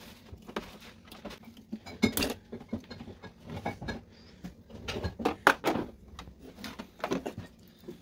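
Scattered clicks, knocks and light rattles of hard plastic and metal as a fridge compressor's plug-on starter relay is pulled off its terminal pins and handled.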